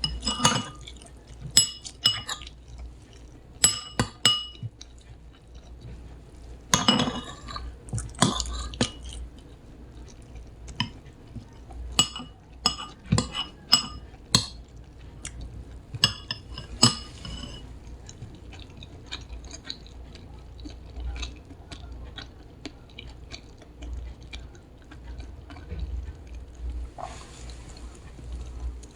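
Dishes and glassware clinking as they are handled: irregular sharp clinks that ring briefly, busiest in the first half and sparser later. A steady hiss comes in near the end.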